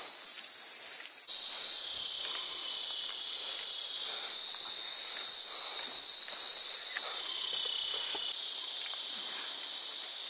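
Loud, steady, high-pitched insect chorus; its level drops sharply near the end.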